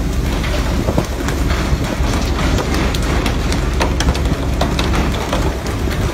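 Steady rush of water spray and wind on a fishing boat's deck over a low rumble, with scattered sharp clicks and knocks.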